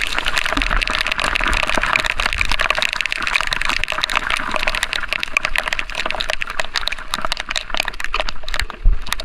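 Rain and wet-road noise heard while riding a motorcycle: a steady hiss full of small crackles, with a brief thump near the end.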